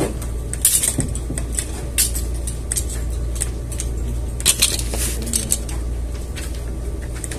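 Light clicks and clatter of small objects being handled and set down on a desk, irregular and scattered, over a steady low hum.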